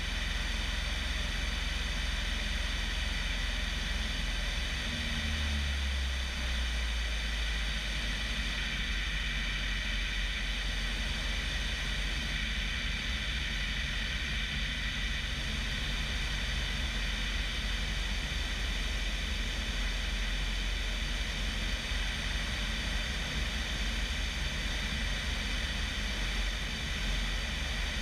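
Bellanca Decathlon's 150 hp Lycoming engine and constant-speed propeller droning steadily in flight, heard from outside the cabin with rushing air over the microphone.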